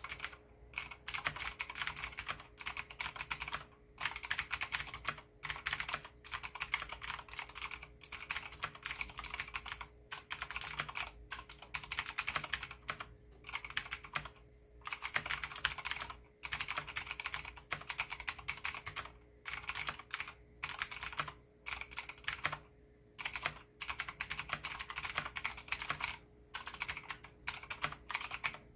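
Continuous fast typing on a Leopold FC660M mechanical keyboard with clicky Cherry MX Blue switches and MDA-profile Big Bone keycaps: rapid sharp key clicks in runs of a second or two, broken by brief pauses. A faint steady hum sits underneath.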